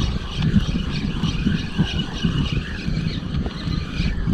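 Daiwa Crossfire LT 1000 spinning reel cranked steadily through a lure retrieve, its gears giving a pulsing whir, over a constant low rumble of wind buffeting the microphone.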